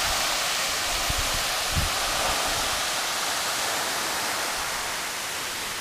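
A 100-metre waterfall crashing into its rock plunge pool: a steady, even rush of falling water.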